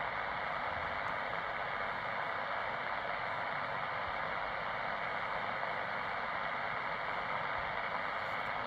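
Shortwave radio receiver on the 20-metre band giving out a steady hiss of band noise, with no station audible between transmissions. The hiss is narrow and thin, held within the receiver's voice passband.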